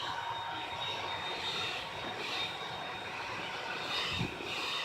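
Handheld hair dryer running steadily: a constant rush of air with a faint motor whine. A couple of low thumps come near the end.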